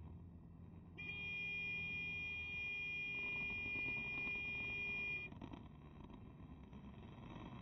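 A steady, high-pitched electronic-sounding tone with overtones sounds for about four seconds, starting and stopping abruptly, over the low rumble of the moving motorcycle.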